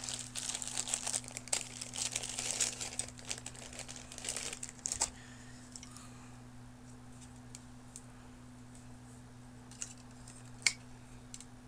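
Plastic packaging crinkling and rustling as it is handled for about five seconds, then quiet apart from two short clicks near the end. The louder click comes as a plastic part is pressed onto a snap-fit airliner model.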